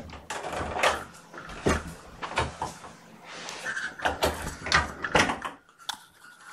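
Irregular knocks and rustling scrapes from a kitten bumping and rubbing against the camera, its fur brushing over the microphone.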